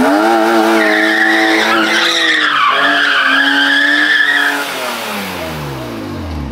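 BMW E36 M3 straight-six held at high revs while doing donuts, tyres squealing on concrete. About four and a half seconds in the squeal stops and the engine note falls as the revs drop away.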